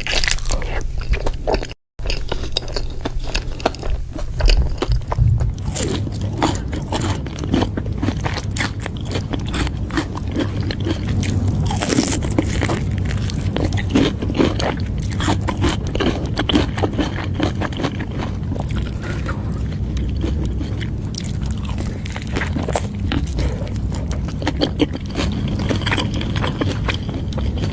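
Close-miked chewing and biting of a burger sandwich: dense crunching and wet mouth clicks over a steady low hum, with a brief break about two seconds in.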